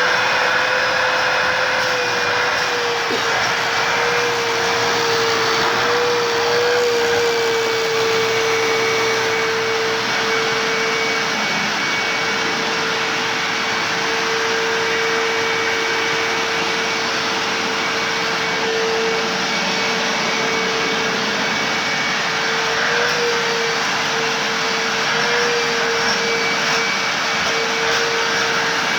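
Hoover WindTunnel self-propelled upright vacuum cleaner running steadily: a constant rushing motor noise with a strong whine that wavers slightly in pitch now and then.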